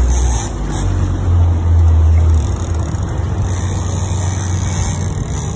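Fishing boat's engine running steadily, its low note shifting up about half a second in, with water rushing past the hull.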